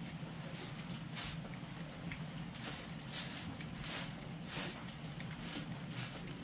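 Short straw hand broom sweeping a rug: a series of brief brushy swishes, roughly one a second, some stronger than others, over a faint steady low hum.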